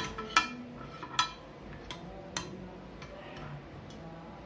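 A metal spoon clinking and knocking against a bowl and a glass baking dish while tomato sauce is scraped out into the dish: about five sharp clinks with a short ring, the two loudest in the first second and a half.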